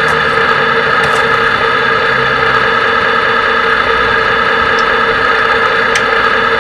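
Steady engine-like idling hum made of several constant tones, with a low rumble that shifts slightly and one faint click about six seconds in.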